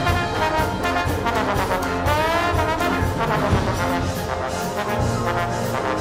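Solo trombone with a full wind ensemble playing loudly. Brass lead the texture, and a sliding, bending line rises and falls in pitch about two seconds in.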